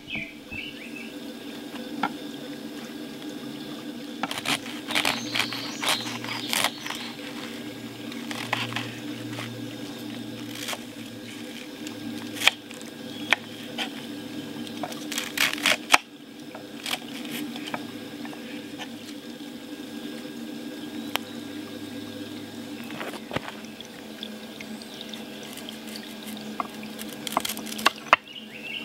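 A folding knife cutting through raw cabbage on a wooden cutting board: crisp, crunchy slicing strokes in clusters, with sharp knocks of the blade on the board. Near the end it cuts into a sweet potato.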